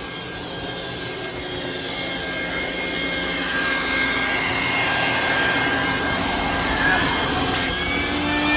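Wet/dry shop vacuum running, a steady rushing noise with a high motor whine, growing louder over the first few seconds and then holding; it is being used to suck out the air conditioner's condensate drain line.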